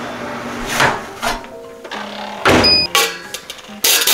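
Background music over the clatter of a metal bread loaf pan being lifted out of the oven and set on a wire cooling rack: several sharp knocks and clunks, the loudest near the end.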